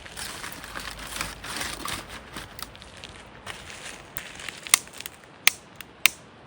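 Dry kindling crunching and rustling as it is handled, then three sharp snaps near the end.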